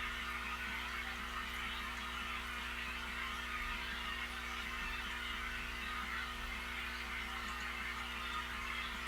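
Steady hum of aquarium equipment with a constant hiss of moving water, unchanging throughout.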